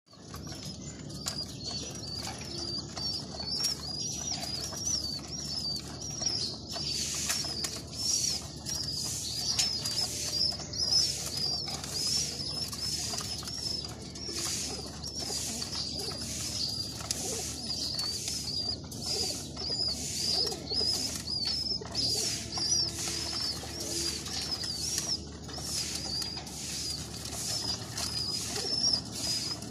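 Constant high, wavering twittering of small birds, with fantail pigeons cooing softly underneath.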